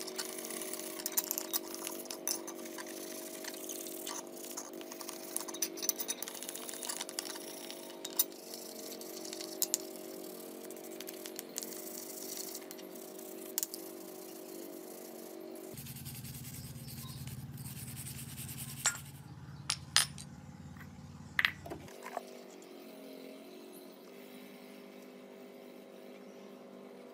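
Rusty steel bicycle chainring being scraped and scrubbed by hand: repeated scratching with frequent sharp metallic clicks and clinks over a steady background hum. Fewer and sparser clicks in the middle, with quieter rubbing near the end.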